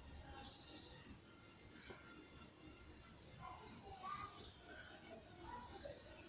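Small birds chirping faintly: many short calls and brief whistled notes at several pitches, scattered irregularly and overlapping, from more than one bird.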